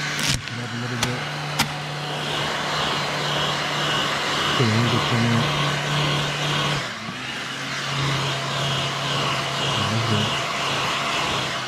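Heat gun running steadily, a constant fan-motor hum under a loud rush of hot air, heating vinyl tint film on a tail light so it can be stretched smooth and its wrinkles worked out.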